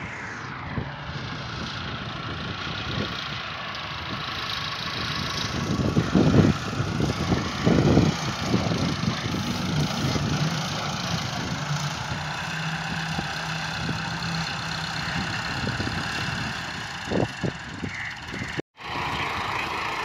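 Farm tractor's diesel engine running steadily as it pulls a potato digger through the field, with a couple of louder knocks about six and eight seconds in. The sound cuts out for a moment near the end.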